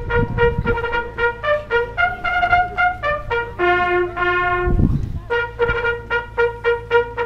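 A brass horn playing a military-style call: quick repeated short notes on one pitch, a higher held note about two seconds in, a lower held note about four seconds in, then the quick repeated notes again.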